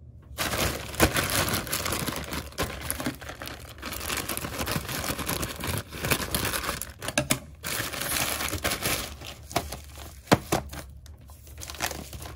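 Plastic courier mailer bag crinkling and crackling as it is handled and torn open, with a brief lull a little past the middle; near the end, the bubble-wrapped box inside rustles as it is pulled out.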